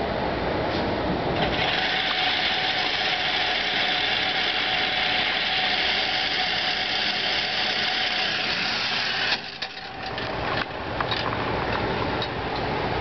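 Electric target carrier motor running steadily as it brings the paper target up the lane, stopping suddenly about nine seconds in. A steady ventilation rush underlies it, and a few light clicks follow the stop.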